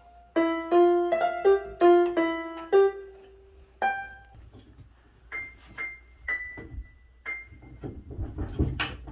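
Piano music: a melody of quick notes for the first three seconds, then sparser, higher single notes. A few dull knocks sound under it near the end.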